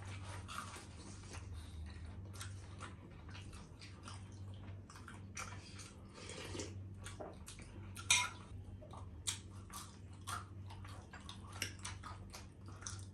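Eating crispy fried shrimp tempura: irregular crunching and chewing with scattered clicks of cutlery against dishes, and a louder crunch or clatter about eight seconds in.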